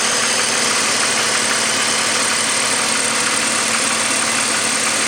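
BMW M54 3.0-litre straight-six in a 2002 530i idling steadily with a knocking noise.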